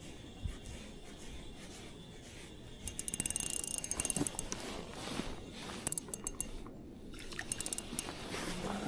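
A hooked horse mackerel being reeled in and landed: several runs of rapid, sharp clicking, the loudest about three seconds in, over faint watery sounds.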